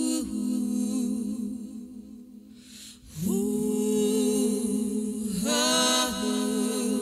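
A cappella singing in long held notes. One note fades out, then about three seconds in a new note slides up into pitch and is held, and the line moves to another note a little after five seconds.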